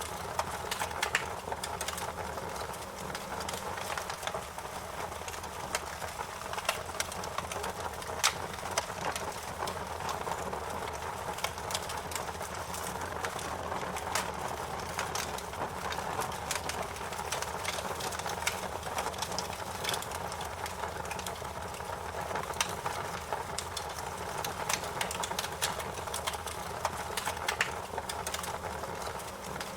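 Campfire crackling: a steady hiss of burning with frequent sharp pops and snaps at irregular intervals.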